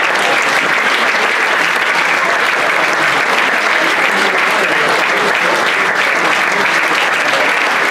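Audience applauding steadily: a dense, even mass of hand claps.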